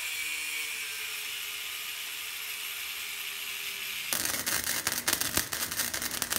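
Angle grinder grinding steel held in a bench vise, a steady hiss with a faint whine. About four seconds in it gives way to the dense, irregular crackle of an arc welder welding a steel support.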